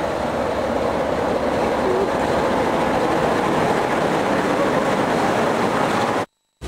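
Class 47 diesel-electric locomotive's Sulzer twelve-cylinder engine running with a loud, steady sound beside the platform. It cuts off abruptly near the end.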